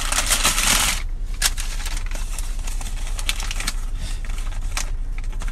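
Sandwich wrapper crinkling as a sandwich is unwrapped: a dense rustle for about the first second, then scattered crackles and clicks.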